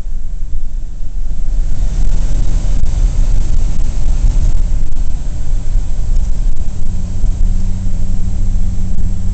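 A 1941 Plymouth under way, heard from inside the cabin: its flathead straight-six running with a steady low rumble under tyre and wind noise. The rushing hiss grows about two seconds in, and a steady engine hum comes up in the last couple of seconds.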